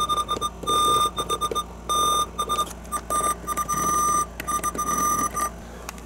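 Several NOAA weather alert radios beeping their alert tones at once after receiving a Required Weekly Test. The high electronic beep comes in overlapping, irregular pulses and stops about five and a half seconds in.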